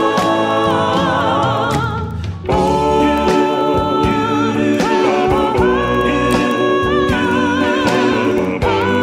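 Background music: a song with a lead singer holding long notes with vibrato over a steady beat.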